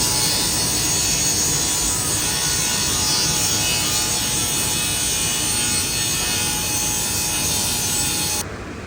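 Electric saw cutting through a wooden board: a steady motor whine over the noise of the cut. It starts abruptly and stops abruptly near the end.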